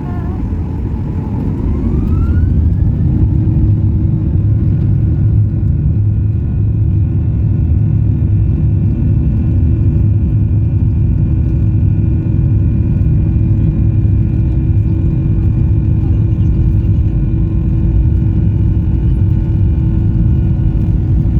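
Boeing 737-800's CFM56 turbofan engines spooling up to takeoff thrust, with a rising whine in the first few seconds, then a steady loud roar and runway rumble during the takeoff roll, heard from inside the passenger cabin.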